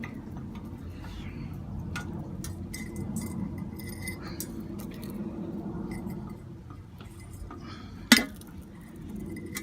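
Small metal clicks and clinks from copper pieces and tools being handled and tapped during soldering, with one sharp, louder click about eight seconds in, over a steady low background hum.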